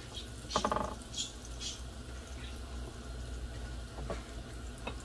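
Breaded eggplant slice frying in shallow vegetable oil, a steady sizzle, while egg wash sloshes and drips as a slice is dipped by hand. A short squeaky sound about half a second in.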